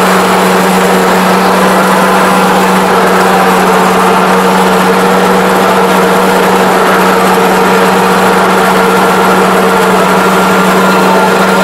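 Kubota combine harvester's engine and threshing machinery running steadily under load while cutting rice, heard inside the cab as a loud, even drone with a constant hum.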